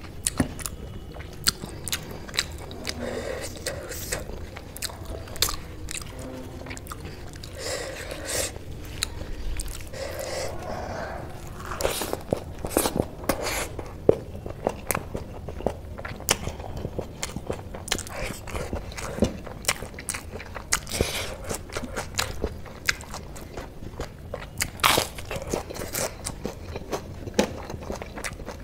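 Close-miked chewing and mouth sounds of a person eating rice and curry by hand: a steady stream of short wet clicks and smacks, with fingers now and then mixing food on a steel plate.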